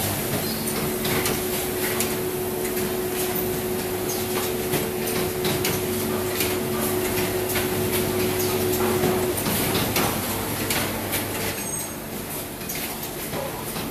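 Automatic coat hanger production line running: a steady machine hum with frequent clacks and knocks from its moving mechanisms. A steady tone in the hum stops about nine seconds in.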